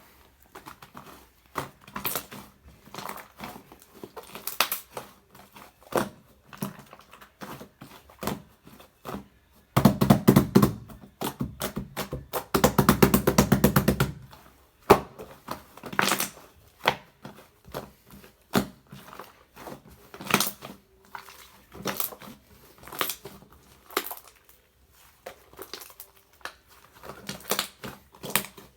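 Slime being squished and poked by hand, making scattered wet clicks and pops. About ten seconds in comes a louder run of several seconds of fast crackling clicks as it is worked hard.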